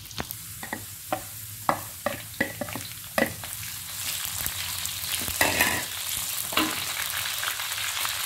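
Sliced shallots sizzling in hot oil in a wok, with a spatula clacking against the wok several times in the first three seconds. The sizzling gets louder about four seconds in, as red chilies are in the pan and stirred with the shallots.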